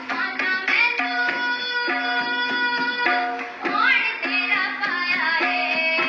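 Indian devotional music: tabla keeping a steady rhythm under sustained melodic notes with some sliding pitches.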